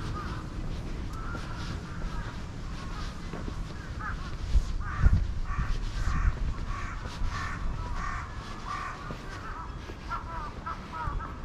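Crows cawing repeatedly, with the calls thickest in the middle stretch and again near the end, over the low thumps of footsteps on paving.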